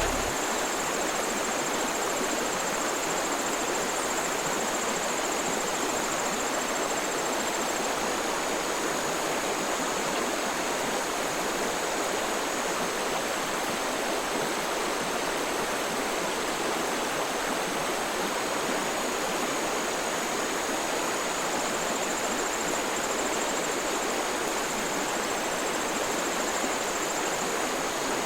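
Steady rushing of running water at an unchanging level, with a faint high whine held over it.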